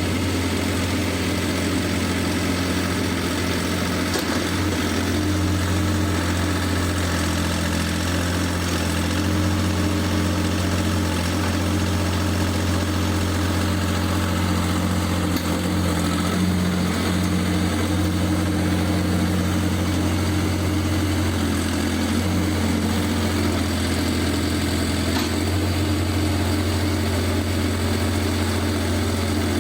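Laidong 385 diesel engine of a 2.5-ton mini excavator running steadily at idle.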